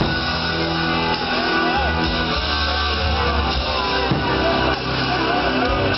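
Music with guitar, rock-style, playing steadily.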